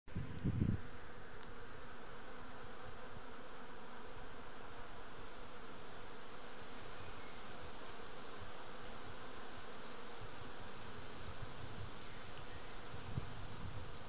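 A honeybee colony humming steadily on its comb in the open top box of a Japanese-style hive, with a brief low bump just after the start and again about a second before the end.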